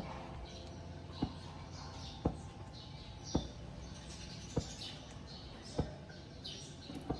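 Small birds chirping over and over in the background, with a sharp click a little more than once a second.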